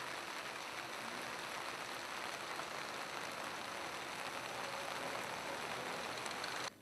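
Steady rain falling onto floodwater: a dense, even hiss that cuts off suddenly just before the end.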